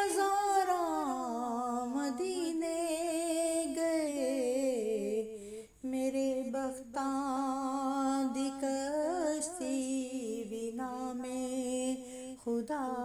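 A woman's voice singing a Punjabi naat in long drawn-out notes that glide and waver, with short breaths about six seconds in and near the end.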